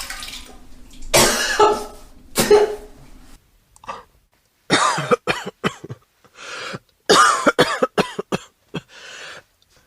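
A person retching and gagging with coughs: a couple of longer heaves in the first few seconds, then, after a short pause, runs of short, rapid coughing gags.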